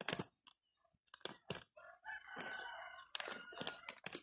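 A plastic koi food bag crinkling and crackling in the hands as it is torn open, in short sharp bursts. A rooster crows from about halfway through.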